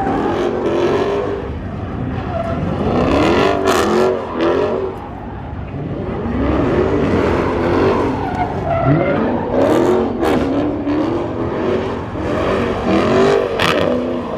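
Car engine revving up and falling back over and over while its tyres spin and squeal, as in a street-meet burnout or donut.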